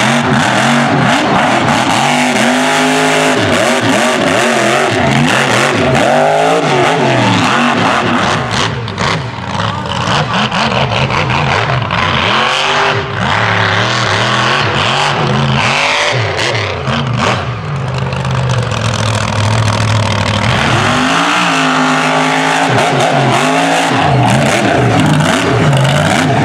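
Mega truck's engine revving hard over and over, its pitch climbing and falling as the truck spins its tyres and slides through loose dirt.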